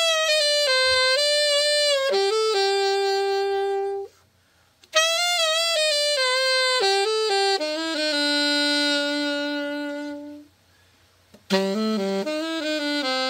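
Selmer Super Action 80 Series II alto saxophone played in three short phrases, each stepping down to a long held low note, with brief pauses about four seconds and ten and a half seconds in. This is a play test after a full overhaul.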